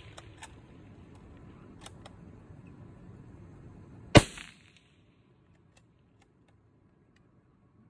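A single loud rifle shot about four seconds in, fired at running elk, with a few faint clicks before it.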